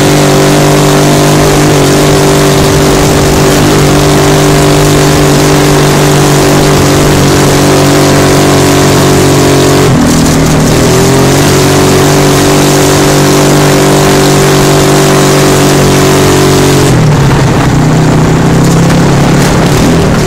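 Dune buggy engine running at steady revs while driving along a dirt track, under a constant loud hiss of wind and track noise. The engine note drops and climbs back up about halfway through and again near the end.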